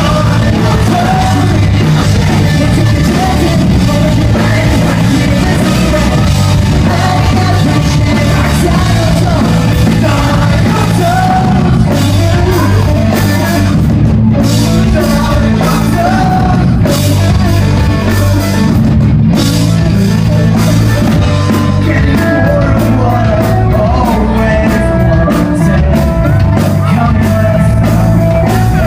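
Loud rock music: a band playing drums and instruments under a sung, at times yelled, vocal, steady and dense throughout.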